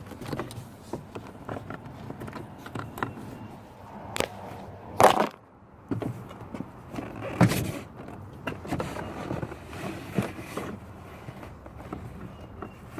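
Scattered clicks and knocks as the door lock linkage clips inside a 2004 Chevrolet Silverado door are worked back into place by hand, with sharper clunks about four and five seconds in and another about seven and a half seconds in.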